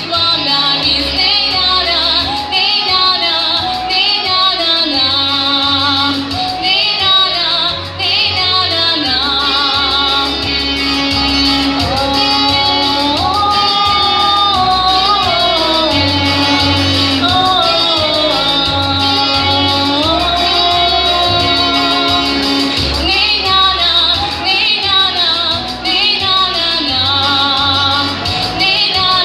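A young female singer sings a pop song over instrumental accompaniment, holding long notes with a wavering vibrato.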